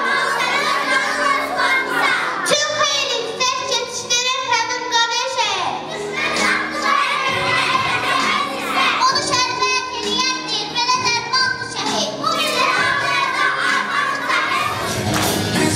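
A young girl singing a song into a microphone, amplified through a PA speaker, over electronic keyboard accompaniment.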